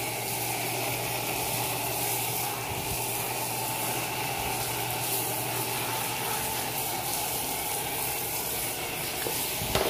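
Handheld shower head spraying a steady stream of water onto a person's skin, rinsing off soap.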